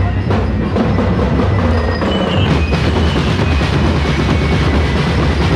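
Festival drum band playing loud, dense percussion music, with drums and wood-block-like clacks.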